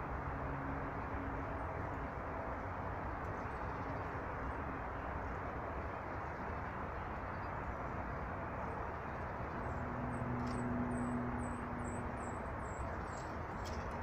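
Steady outdoor rushing background with a faint low hum, over which a small bird, about ten seconds in, gives a quick run of about eight thin, high chirps lasting some three seconds.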